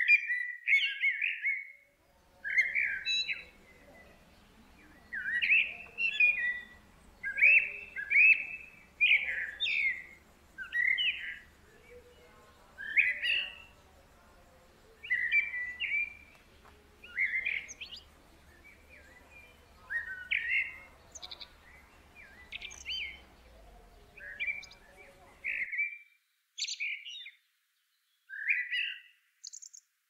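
Middle spotted woodpecker calling: short, sharp chirps repeated about once or twice a second in loose clusters.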